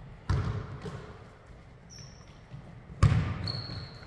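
Basketball bouncing on a hardwood gym floor: two heavy bounces about three seconds apart, each echoing around the hall. A thin high squeak comes in near the end.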